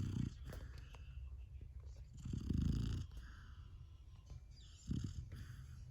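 Golden retriever puppy snoring in its sleep: three low snores about two and a half seconds apart, with softer breathy sounds between them.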